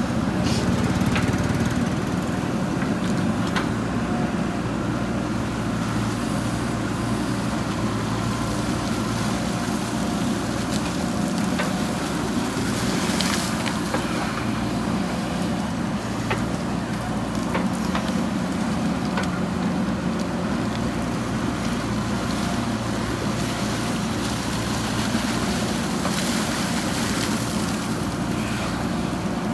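JCB backhoe loader's diesel engine running steadily while digging, with a few short knocks.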